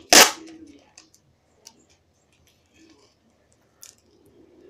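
A strip of duct tape ripped off the roll in one loud, quick rip just after the start, followed by faint crinkles and clicks as the tape is handled.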